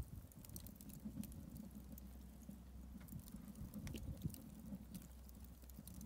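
Faint, sparse crackling and ticking from a kazan of just-cooked pilaf steaming as it sits, over a low steady rumble.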